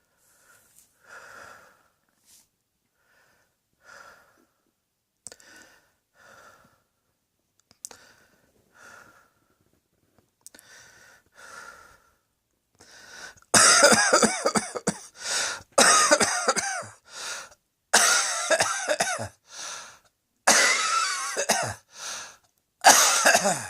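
A person coughing: soft short breaths and small coughs, spaced out, for the first half, then from a little past halfway a string of loud coughing fits with brief pauses between them.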